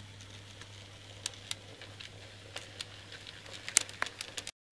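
A low steady hum with scattered small clicks and crackles that come thicker toward the end, then a brief dropout.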